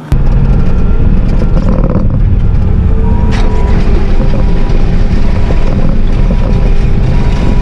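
Bobcat T650 compact track loader's diesel engine running loud and steady at work, with scattered clicks and rattles and a thin steady whine that comes in about three seconds in.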